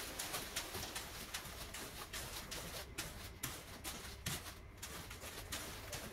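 Wet concrete sliding off a chute while a shovel chops and scrapes through it, an irregular string of scrapes and knocks over a low steady rumble.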